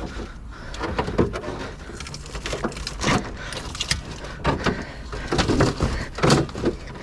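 Scrap being handled and rummaged through: irregular knocks, clicks and rustling.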